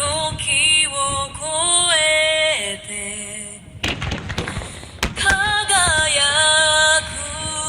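A pop song sung by female voices plays over loudspeakers, with firework bangs breaking in. Near the middle the singing drops out and sharp firework reports and crackle fill the gap before the song comes back.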